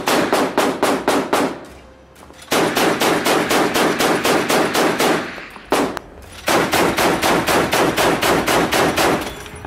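A warship's deck-mounted machine gun firing long bursts of rapid, evenly spaced shots, about seven a second. It pauses about two seconds in, fires a short burst near six seconds, then fires another long burst.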